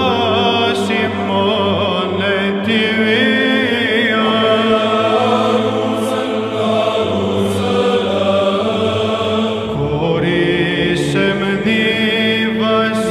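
Byzantine chant: a choir singing a slow hymn over a held low drone (ison), which shifts to a new pitch near the end.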